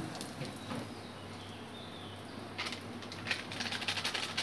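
Panch phoron, dried red chilli, bay leaf and asafoetida frying in hot mustard oil in a kadai: a light sizzle with crackling pops that grow much denser about two and a half seconds in.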